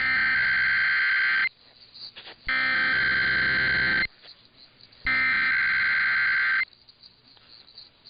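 Emergency Alert System SAME header: the digital data code sent three times as three raspy, warbling bursts of data tones, each about a second and a half long with about a second's gap between. It is the coded header that opens an EAS required weekly test.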